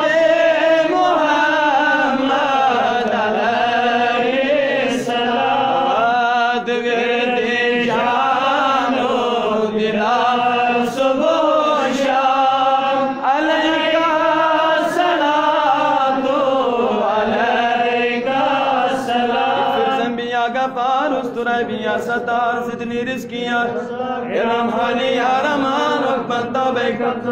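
A man's solo voice chanting a Kashmiri naat, a devotional song in praise of the Prophet, unaccompanied, in long sustained phrases that glide up and down in pitch.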